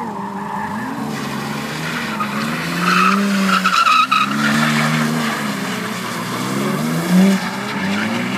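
BMW E30 drifting: the engine revs up and down hard while the rear tyres squeal and spin on tarmac. The squeal is loudest about three to four seconds in.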